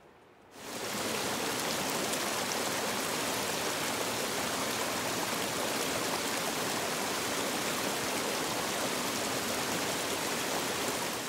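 Small mountain creek running over rocks, a steady rushing that starts abruptly about half a second in and holds at an even level.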